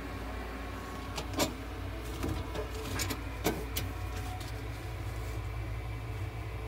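Steady low machine hum from a veterinary oxygen and nebulizer (inhalation) cage running, with a handful of light clicks between about one and four seconds in.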